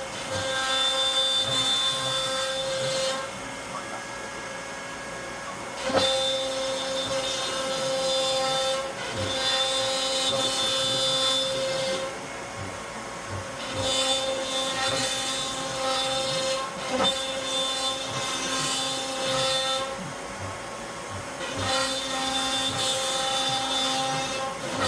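CNC router spindle running with a steady whine as its bit cuts wood. The sound grows louder and harsher for stretches of several seconds and drops back between them, with a sharp knock twice.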